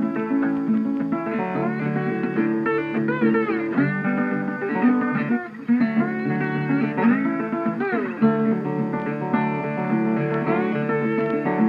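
Background music: guitar playing a blues-style tune, with bending, sliding notes.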